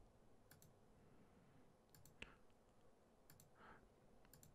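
Faint computer mouse clicking, mostly quick double clicks a second or so apart, over near-silent room tone.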